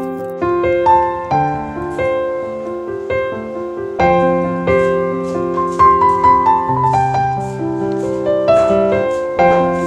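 Background solo piano music: a gentle melody of single notes that strike and fade over held lower notes, with a falling phrase in the middle.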